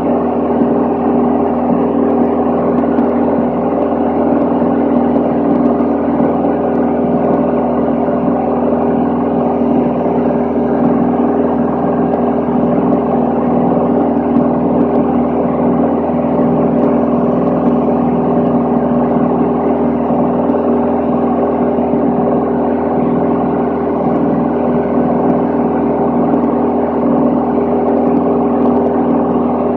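Van's RV-10 light aircraft's piston engine and propeller droning steadily in level flight, heard from inside the cabin: one constant, even hum that does not change in pitch or level.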